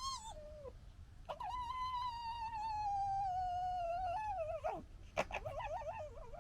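Red fox cubs calling: a falling whine trails off, then one long high whine held for about three seconds and sinking slowly in pitch, followed near the end by a quick, wavering, stuttering chatter.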